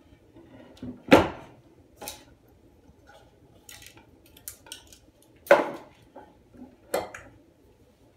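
Porcelain toilet tank set down on a wooden tabletop with a sharp knock about a second in, then lighter clinks and two more knocks as parts and metal slip-joint pliers are handled against the tank.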